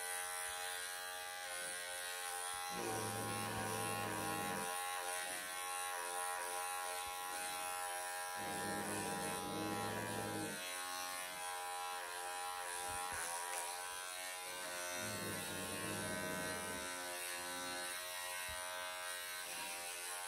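Cordless electric pet clippers running steadily as they shear a long-haired cat's matted coat, a steady motor buzz. A lower hum joins in three times for about two seconds each.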